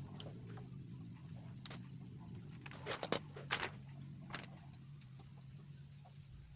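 Metal clinking and rattling as a coiled flexible metal gas hose and its fittings are handled, with a cluster of sharp clinks about halfway through. A steady low hum sits underneath.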